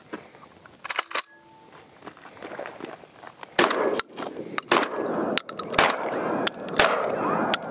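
Beretta A300 Ultima Patrol 12-gauge semi-automatic shotgun: the bolt is racked with a quick double clack about a second in, then four shots are fired about a second apart.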